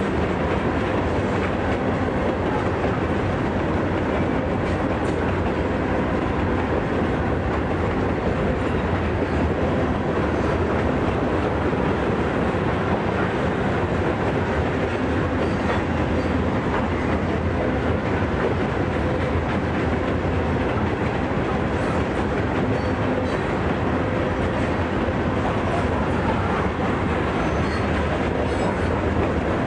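Steel wheels of a long string of freight cars, open-top hoppers, rolling steadily past on the rails: a constant noise with a faint steady tone running through it.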